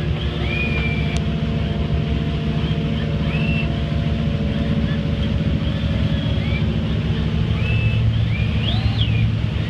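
Chris Craft Commander's inboard engine running at a steady cruising speed, a constant low drone. Short high gliding chirps sound over it every second or so, closer together near the end.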